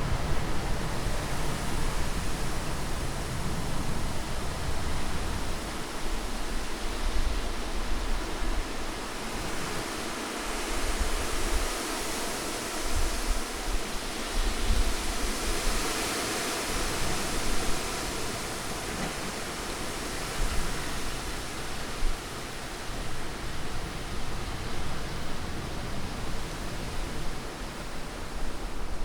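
Steady rushing wind, an unbroken hiss that swells and eases, growing brightest about halfway through, over a low rumble that fades for a while and then comes back.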